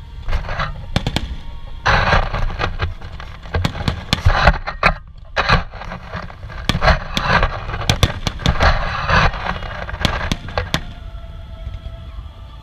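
Aerial fireworks going off: a rapid run of sharp bangs and crackling bursts, densest from about two seconds in until near the end, then thinning out.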